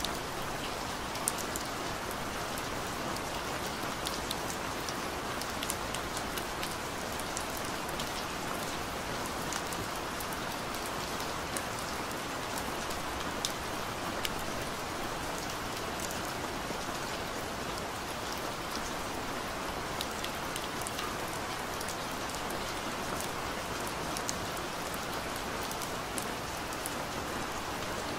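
Steady rain falling, an even hiss with scattered individual drops ticking sharply through it.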